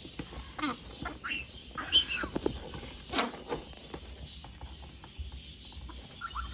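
Baby African grey parrot chick making a run of short, squeaky calls and chirps with quick pitch sweeps, the loudest about two and three seconds in, with light clicks between them.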